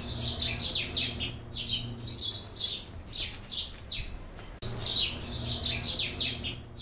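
Small songbirds chirping fast and high, each chirp sweeping downward, over a steady low hum. The birdsong breaks off sharply about two-thirds of the way through and starts over, as a looped recording does.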